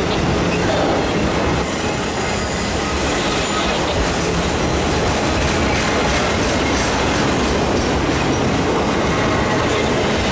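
Freight train of multi-level autorack cars rolling steadily past at close range, a continuous rumble and clatter of steel wheels on the rails.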